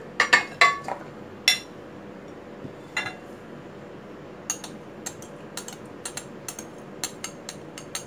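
A ceramic plate clinking against a stainless steel pot as raw chicken pieces are tipped in: a few sharp clinks in the first second and a half. A quick run of lighter clinks follows from about halfway on, from a spoon and small mesh strainer against the pot.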